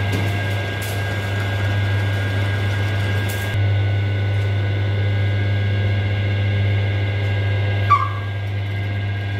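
Metal lathe running: its electric motor gives a steady hum with a constant high whine above it. A single short squeak sounds about eight seconds in.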